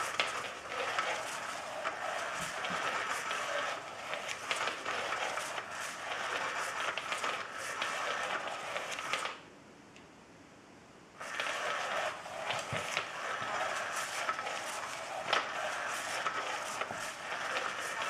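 Undercover Mouse cat toy running: its motor sweeps the wand around under the fabric cover, a steady scratchy rustle with many small ticks. It stops for about two seconds near the middle, then starts again.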